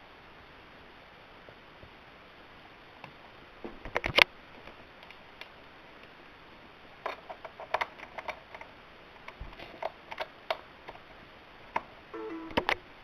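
A series of sharp clicks and knocks over a steady hiss, the loudest cluster about four seconds in, with a brief low hum near the end.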